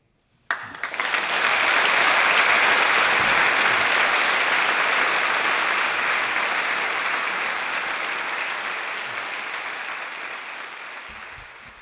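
Audience applauding at the end of a lecture. The clapping starts abruptly about half a second in, swells to full within a second or two, then slowly dies away.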